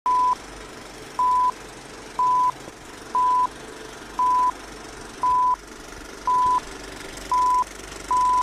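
Film-leader countdown sound effect: nine short, identical high beeps, one about every second, each marking a number of the countdown, over a steady background hiss.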